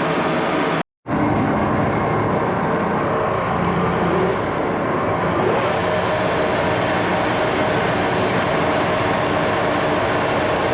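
Steady machine-tool running noise, a continuous mechanical drone that cuts out completely for a split second about a second in.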